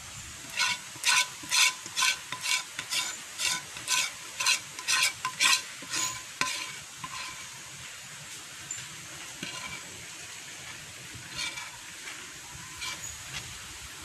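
Metal spoon scraping and knocking inside a metal wok, each stroke ringing briefly, about two or three strokes a second for the first six seconds, then a few scattered softer scrapes; thick jam is being scraped out of the pan into a jar.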